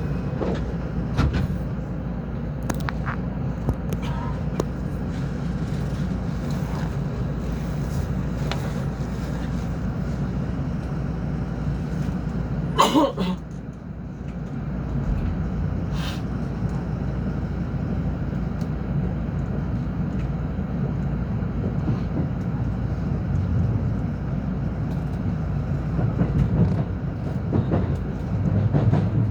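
Rapid-service commuter train running: a steady low rumble with scattered clicks and rattles. About thirteen seconds in there is one short loud sound with a sliding pitch, after which the rumble briefly drops and builds again.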